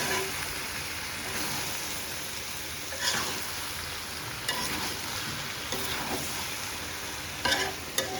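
Chicken sizzling as it is fried in spice paste (kosha) in a pan, with a spatula scraping and knocking against the pan a few times.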